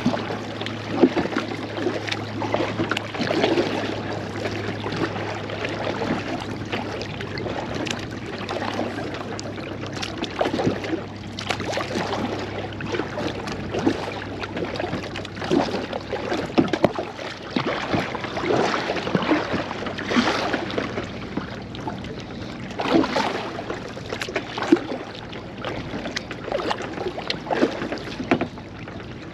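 Kayak paddle strokes dipping and splashing into the water at an uneven rhythm, about one every second or two, with water lapping against the plastic hull of a Pelican Argo 100X angler kayak.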